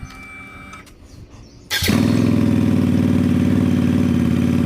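A Yamaha V Star 950's V-twin engine starts up a little under two seconds in and settles straight into a steady idle.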